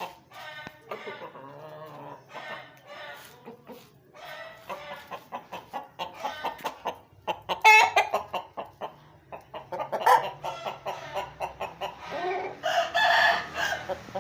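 Aseel chickens clucking in a run of short calls, with one longer, louder call near the end that sounds like a rooster crowing.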